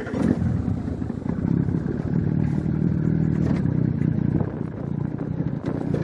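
Motorboat engine running just after starting, with the boat getting under way.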